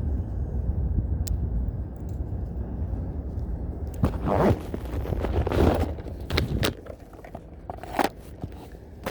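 Spinning reel being handled and cranked outdoors: a low wind rumble, then a louder scraping, rustling patch about four seconds in, followed by scattered light clicks.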